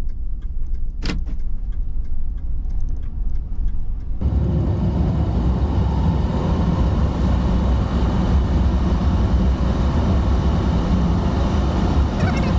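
Road and tyre rumble inside a car cabin as the vehicle is towed along in neutral, with a single click about a second in. About four seconds in, the rumble and road noise suddenly get much louder and stay loud.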